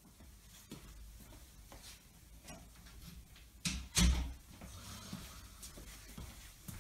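Interior door being pushed shut: two sharp knocks close together about halfway through as it closes and latches, with soft footsteps before and after.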